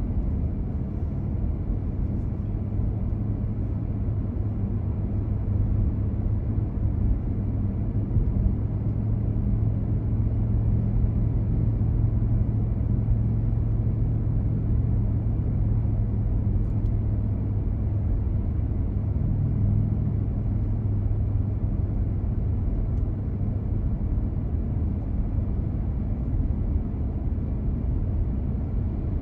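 Steady low engine hum and road noise of a car driving on city streets.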